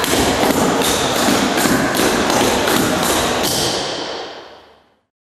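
Clogging shoe taps striking a wooden floor in a quick, even run of thuds and taps from buck and flatfoot steps, fading out about four seconds in.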